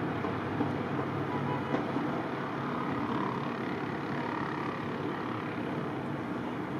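Vehicle engines running on a snowy street: a steady low drone under a constant rush of noise, with a faint wavering whine in the middle.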